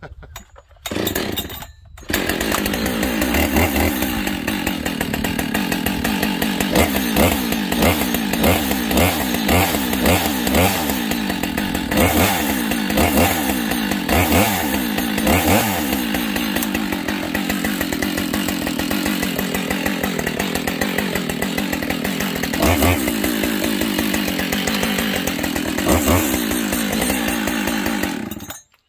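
Husqvarna 572XP two-stroke chainsaw with AutoTune, set on choke after sitting all winter. It gives a short burst in the first second, then catches about two seconds in and runs loudly and continuously. Its pitch wavers up and down in the second half, and it cuts off abruptly just before the end.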